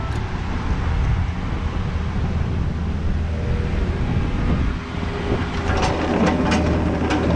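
Engine running steadily under heavy wind noise on the microphone, with a few sharp knocks or clanks in the last couple of seconds.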